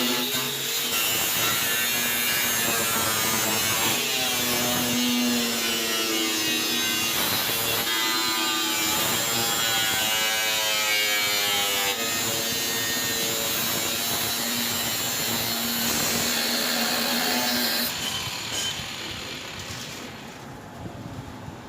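A handheld power tool running under load, probably working metal, with a wavering pitch. It dies away about eighteen seconds in.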